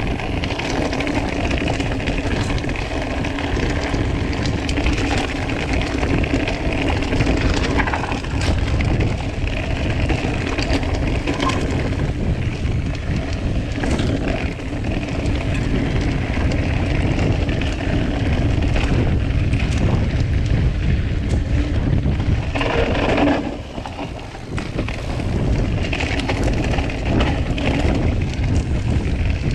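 Orbea Occam TR mountain bike ridden fast down a dirt forest singletrack: constant tyre rumble and wind buffeting on the microphone, broken by short knocks and rattles from the bike over the rough ground.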